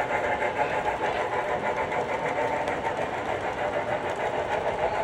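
Model train running on its track: a steady small-motor buzz with a quick wheel clatter.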